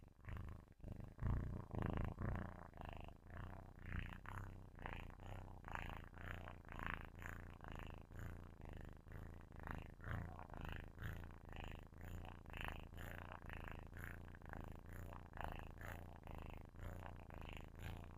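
Kitten purring close to a microphone: a low, steady rumble that swells and fades in a regular rhythm, a little more than once a second, and is loudest about a second in.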